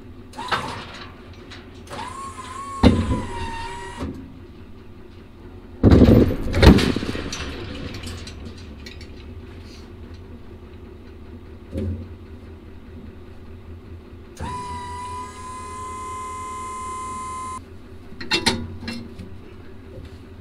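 Heavy metal clunks as a portable cattle chute's gooseneck coupler is let down onto a pickup's bed hitch ball, loudest about six seconds in. Two spells of a steady motor whine, a short one near the start and one of about three seconds later, run over a low steady hum.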